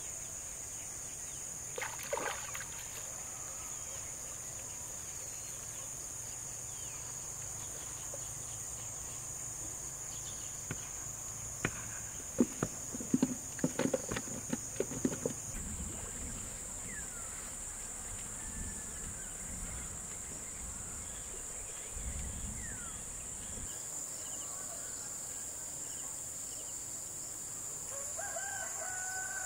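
Steady, high-pitched insect chorus, with a cluster of sharp knocks and clicks a little before halfway and a few faint chirps later on.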